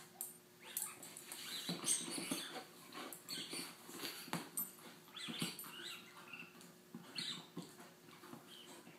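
Akita chewing and gnawing on a toy, a run of irregular scratchy, crunchy bites and scrapes.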